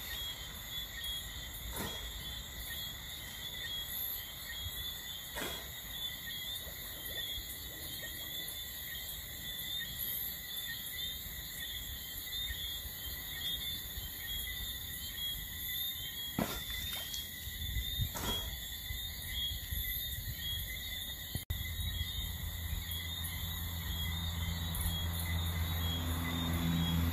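Night insects, crickets among them, calling in a steady, high, multi-pitched chorus, with a few faint clicks. After a brief break about 21 seconds in, low steady tones swell in underneath.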